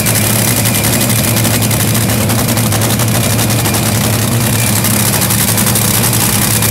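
Top fuel dragster's supercharged, nitromethane-burning Hemi V8 idling, very loud and steady with a deep, even beat and no revving.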